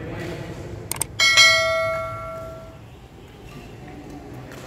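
A quick click, then a bright bell ding that rings and fades away over about a second and a half: the sound effect of a YouTube subscribe-and-notification-bell animation.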